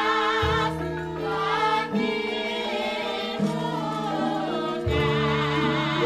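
Javanese gamelan playing a gending with singing voices over the held metallophone notes. A deep low note sounds about half a second in and again near five seconds in, ringing on each time.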